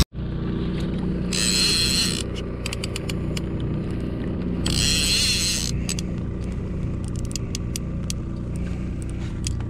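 Outboard motor running steadily at trolling speed, a low drone, while a line-counter trolling reel is cranked against a hooked fish, with scattered clicks. Two short hissing whirs come about a second and a half and five seconds in.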